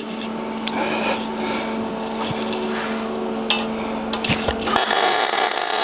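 Longevity Migweld 140 MIG welder laying a tack weld on steel angle iron: after a steady low hum with a few light clicks, the arc strikes about five seconds in and crackles steadily.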